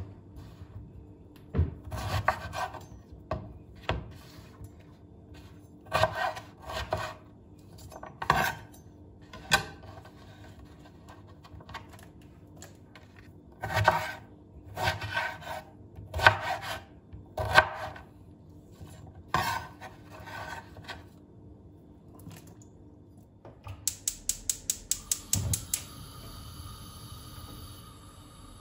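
Kitchen work with utensils: irregular scraping and rubbing strokes, some in quick runs. Near the end comes a fast run of about a dozen even clicks, followed by a steady humming tone.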